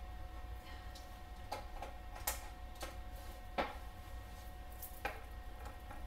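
Scattered light clicks and knocks, about six of them, from a power plug and cord being handled and pushed into a power board, over a faint steady hum.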